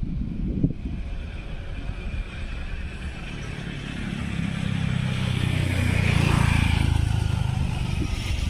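A motor vehicle passing on the road, its engine hum building to loudest about six seconds in and then easing off. Wind buffets the microphone at the start.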